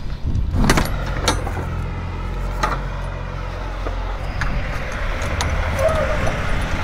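Steady low rumble of an idling truck, with a few sharp metallic clicks and jingles on top.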